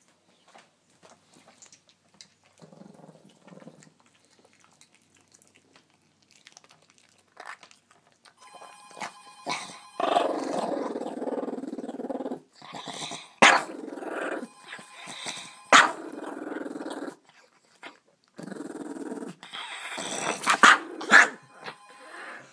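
Small dog growling while guarding its food: faint at first, then a long loud growl from about ten seconds in, broken by a few sharp, louder outbursts.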